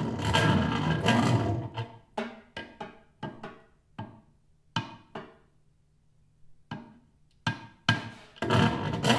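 Snare drum played with a drumstick in unusual ways. A dense scratchy texture opens, then a dozen or so separate short strokes follow with quiet gaps, including a pause of about a second in the middle. The dense texture returns near the end.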